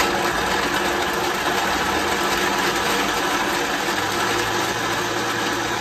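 High-speed blender running at high speed, chopping Irish moss (sea moss): a steady motor with the churn of the contents in the jar. A low hum joins about four seconds in.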